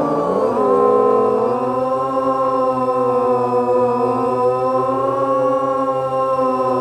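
The xCraft PhoneDrone's electric motors and propellers whining as it flies, heard from the phone riding on the drone: several tones at once that dip in pitch and climb back near the start, then hold steady.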